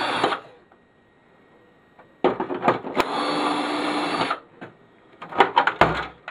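Cordless drill/driver whirring in two steady bursts, the longer about two seconds, backing screws out of a printer's casing, followed near the end by a run of clicks and knocks from handling the parts.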